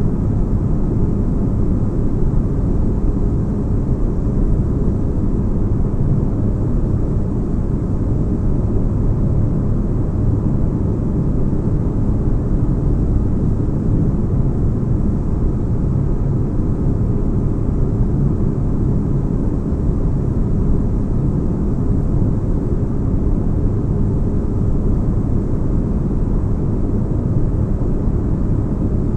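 Steady deep rumbling noise of a sci-fi spaceship ambience, low bass hum with little high end and no change in level.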